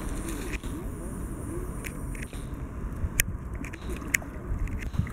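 Wind rumbling on the microphone, with a few sharp clicks.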